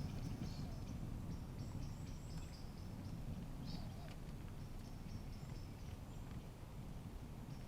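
Faint woodland ambience: a steady low rumble with small birds chirping faintly in the distance.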